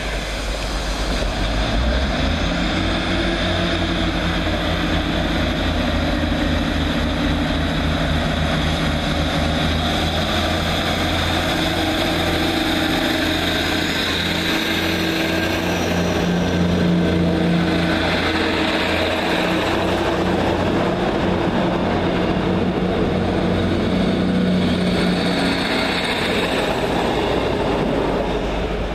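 Diesel multiple unit's engines running with a steady, throbbing drone as the train stands at the platform and then pulls out. A faint rising whine is heard about two seconds in.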